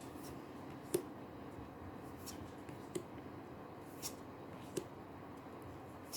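A handful of faint, sharp clicks and light taps over quiet room hiss, from trading cards and their packaging being handled on a table.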